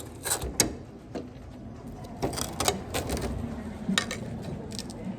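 A scattering of sharp clicks and knocks of hard objects, about half a dozen spread irregularly, over a steady low background rumble.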